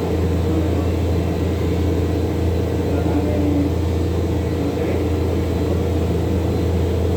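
A motor running steadily with a constant low hum and a fainter, higher steady tone, unchanging throughout.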